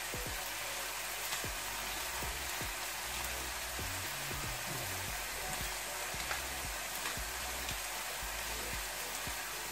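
Minced beef and pork frying in a pan, with a steady sizzle.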